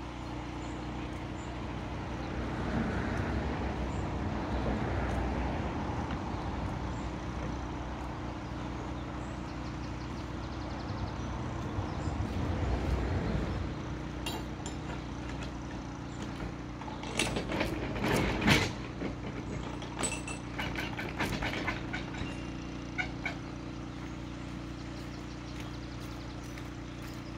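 Steady low engine hum throughout, as a heavy wooden lock gate is swung open by hand, with two slow swells of noise as it moves. About two-thirds of the way through comes a cluster of sharp knocks and metallic clanks, the loudest sounds, from gear at the lockside.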